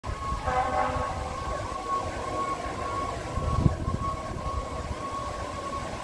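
Fire engine responding with its siren wailing steadily and a blast of its air horns about half a second in. A low rumble of traffic runs underneath, with a short low thump about three and a half seconds in.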